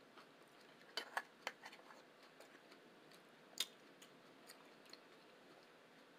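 Quiet eating sounds: a scatter of short, sharp clicks and taps, with a cluster about a second in and the loudest a little past three and a half seconds.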